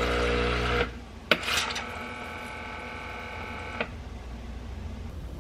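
Breville Barista Touch espresso machine auto-purging its steam wand after frothing milk. A low mechanical buzz stops about a second in; a click follows, then a steady hissing tone of about two seconds that cuts off with a click.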